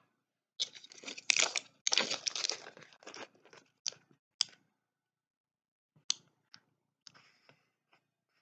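Medicine packaging being handled: about two and a half seconds of dense rustling and crunching, then several separate sharp clicks and faint rustles.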